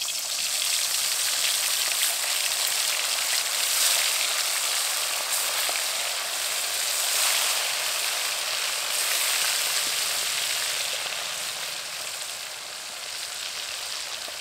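Pieces of stingray sizzling loudly as they fry in hot mustard oil in a kadai. The sizzle is steady, then eases off gradually over the last few seconds.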